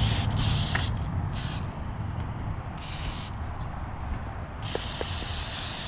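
Aerosol can of rust converter spraying in four short bursts of hiss, the last one the longest, as the coating goes onto rusting welds.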